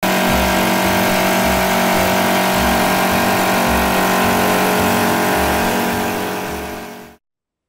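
Industrial wood-turning machine running, its cutters shaping a spinning log into a round: a loud, steady mechanical drone with an uneven low throb. It fades near the end and then cuts off.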